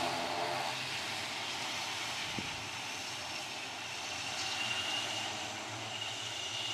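ATR 72 twin-turboprop airliner's engines and propellers running as it rolls along the runway: a steady engine and propeller noise with a low hum, and a thin high turbine whine that comes in about halfway through and again near the end.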